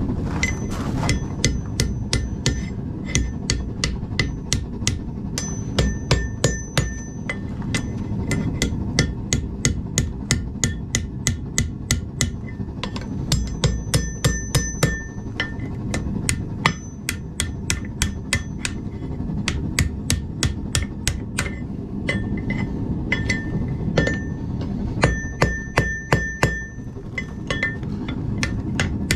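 Hand hammer blows on an Alec Steele forged anvil, about three strikes a second in long runs with short pauses. Many strikes leave a brief metallic ring, and a steady low rumble runs underneath.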